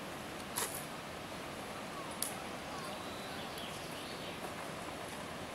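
Steady outdoor background hiss with faint short chirps, broken by two short sharp clicks, about half a second and two seconds in.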